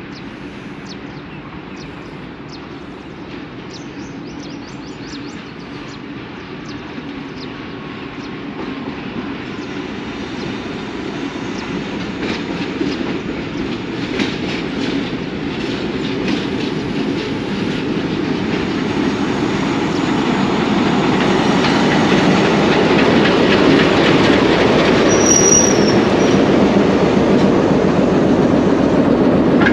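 A passenger train led by a PHA-20 diesel locomotive pulls in on the station loop line, growing steadily louder as it nears. Its coaches then roll past close by, the wheels clattering over the rail joints as it slows for its stop. A short high squeal comes near the end.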